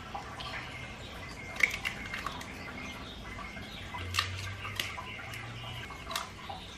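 Eggs tapped on the rim of a stainless steel mixing bowl and cracked open: several short, sharp taps and shell cracks spread out one after another.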